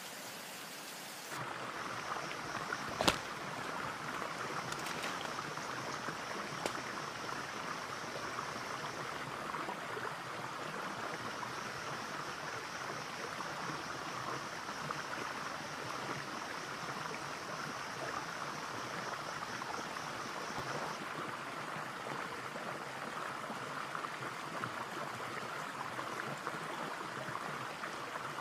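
Small, clear forest stream running and babbling over stones, starting after about a second of steady hiss, with a steady high buzz that drops out for a couple of seconds and returns. A sharp knock about three seconds in is the loudest sound, with a few fainter clicks after it.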